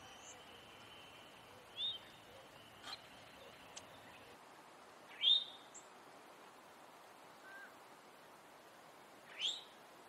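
Male eastern towhee giving its alarm call: three short rising notes a few seconds apart, the middle one the loudest.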